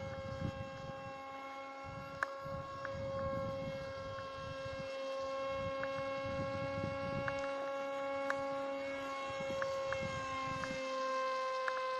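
Electric motor and propeller of a Dynam Hawksky V2 RC plane giving a steady high whine with several overtones, bending slightly in pitch near the end, while gusts of wind buffet the microphone.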